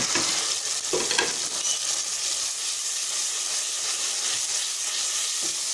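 Tomato, ginger and garlic masala paste sizzling steadily in hot oil in a pot as dry spices are added and a wooden spoon stirs it. There are a couple of short knocks about a second in.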